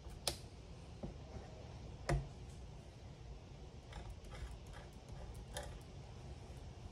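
Scattered light taps and clicks, the loudest about two seconds in, as a stencil and a metal palette knife are handled over a card on a craft cutting mat.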